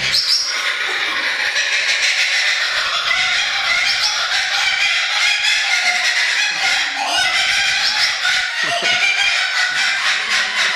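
Laughing kookaburra giving its laughing call, a long unbroken run of rapid repeated notes.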